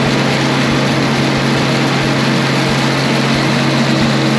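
Case International 1680 Axial-Flow combine running while harvesting, straw coming out the back: a steady engine hum under loud, even machinery noise.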